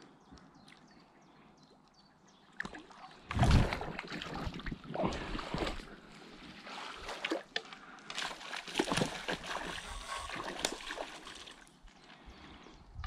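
A hooked salmon splashing and thrashing at the surface while being played on rod and line. The irregular splashes and sloshes start about two and a half seconds in, with the heaviest one about a second later.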